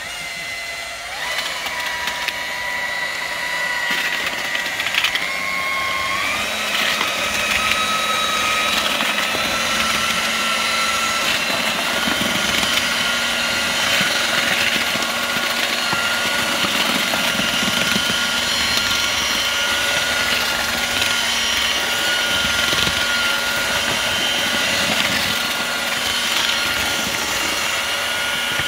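Eibenstock twin-paddle mortar mixer drill starting up and running, whisking hot-mixed quicklime and sand mortar in a galvanised metal dustbin. Its motor whine climbs in steps over the first several seconds, then holds steady.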